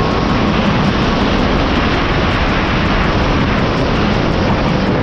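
Loud, steady wind rush on the handlebar camera's microphone as the electric-converted Yamaha YZ250 dirt bike runs at high speed. A faint whine slowly drops in pitch underneath it.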